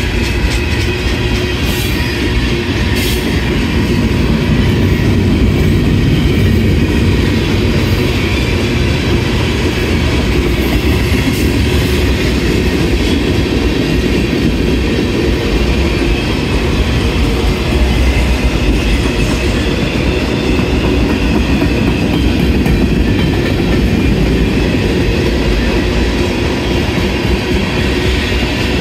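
Tank cars, an autorack and covered hoppers of a CSX mixed manifest freight train rolling past close by: the steel wheels on the rail make a steady, loud running noise that holds without a break.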